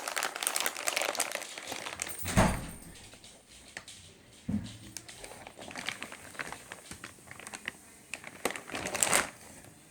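Shotgun packaging being handled and crinkled during unboxing, with a heavy thump about two and a half seconds in and a lighter one a couple of seconds later.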